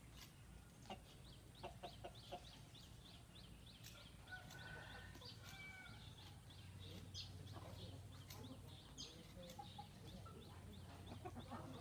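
Chickens clucking faintly, with quick high chirps repeating throughout.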